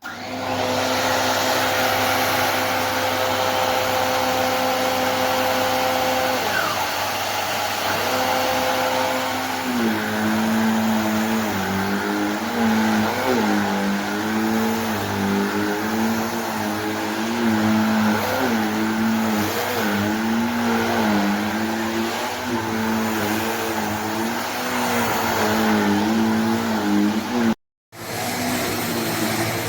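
Cecotec Conga Rockstar 3000 Mattress Essential handheld mattress vacuum running: it starts suddenly and gives a steady motor whine over a rush of air. About a third of the way in, the whine begins wavering up and down in pitch. It cuts out for a moment near the end and comes straight back.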